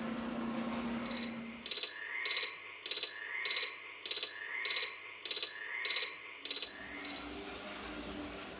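A repeated, high-pitched animal chirping call, about two chirps a second with a lower rising note about once a second, starting a little over a second in and stopping about seven seconds in.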